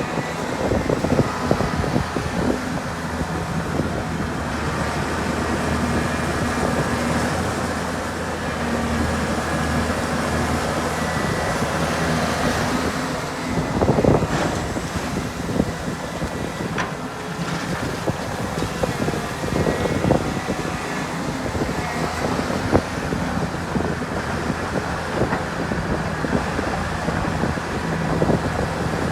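Heavy diesel excavator and dump truck engines running steadily, with scattered knocks and clanks, the loudest about halfway through.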